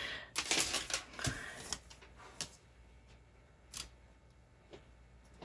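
Small clicks and soft rustling of jewelry being handled, a cluster of them in the first two seconds, then a few scattered light ticks.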